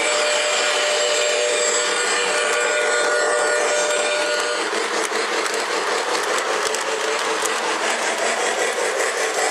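Model train running past on its track: the locomotive's electric motor hums and the wheels rattle along the rails, with a steady whine that stops once the locomotive has gone by about four and a half seconds in. The passenger cars keep rolling past after that.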